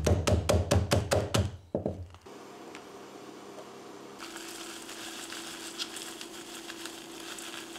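Background music fades out about two seconds in. Then crushed freeze-dried fruit crumbs are poured from a plastic zip-top bag into a stainless steel mesh strainer and sifted, a faint rustling with many small ticks over a low steady hum.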